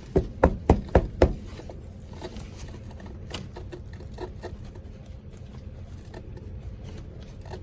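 Five sharp knocks within about a second and a half, then faint irregular clicking over a steady low hum.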